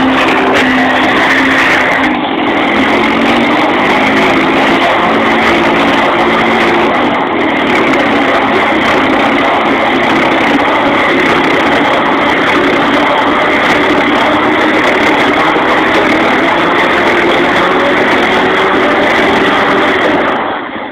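Honda Rancher 420 ATV's single-cylinder engine held at high revs as it spins donuts, with the wheels spinning and throwing water off the wet ice. The engine note wavers steadily and drops away suddenly near the end.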